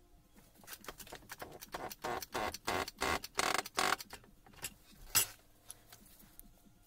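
Metal handling noise as the Hilti TE 500 armature and bearing puller are worked by hand and freed from the vise: a quick run of irregular scraping, rattling strokes, then a single sharp click about five seconds in.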